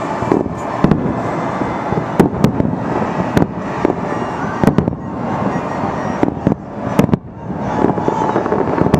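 Fireworks display: a dense, continuous crackle and popping of bursting shells, with sharper bangs standing out irregularly every second or so.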